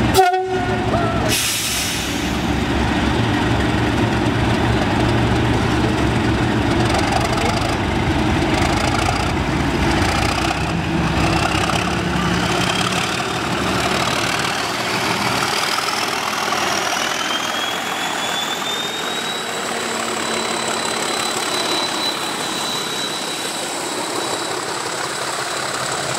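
A pair of Class 37 diesel-electric locomotives pulling away under power, their English Electric V12 diesels running loud and hard. About ten seconds in, a whistle, typical of the engines' turbochargers, rises in pitch and then holds steady. The engine sound fades after about fifteen seconds as the coaches roll past.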